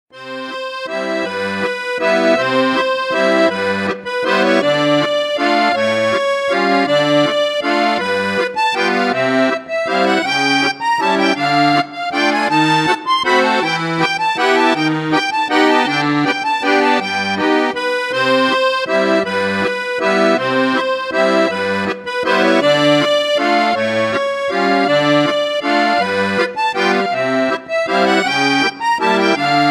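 Background music: an accordion playing a lively tune over a steady bass-and-chord beat.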